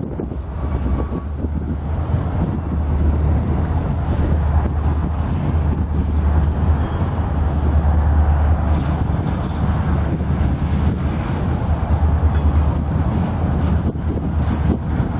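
Diesel locomotives idling in a rail yard, a steady low rumble, with wind buffeting the microphone over it.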